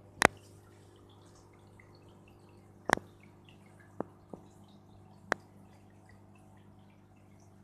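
Aquarium heard from the camera in the tank: a steady low hum from the tank's equipment with faint bubbly dripping, broken by five sharp clicks, the loudest right at the start and another about three seconds in.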